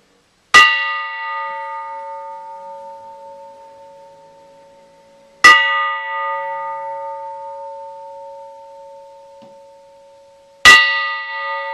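Shunkoin's old Christian-era church bell struck three times, about five seconds apart. Each strike is a sharp clang, then a long ring that slowly fades, with the bright upper overtones dying away first and two steady lower tones lingering.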